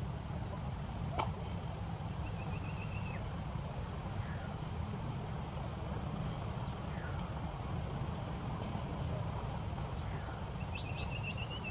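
Outdoor ambience: a steady low rumble with birds calling over it, a few short downward chirps and a quick trilled call about two seconds in and again near the end. A single sharp click about a second in.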